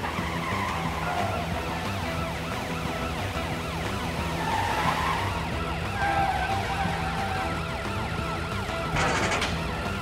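Cartoon car-chase sound effects: a car engine and a police siren over background music, with a short rush of noise near the end.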